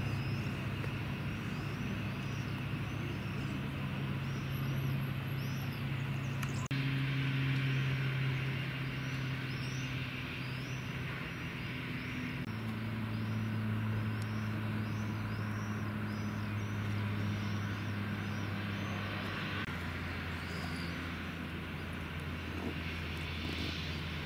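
Steady low engine-like drone that shifts to a new pitch a few times, with faint short high chirps repeating above it.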